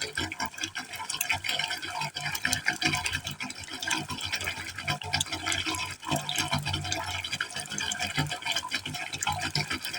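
Water falling into a pipe hole, splashing steadily with a constant patter of small irregular splashes.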